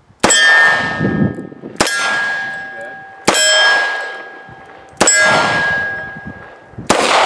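Five shots from a Taurus 85 Ultra Lite .38 Special revolver, one every one and a half to two seconds, each followed by the ringing clang of a steel target being hit.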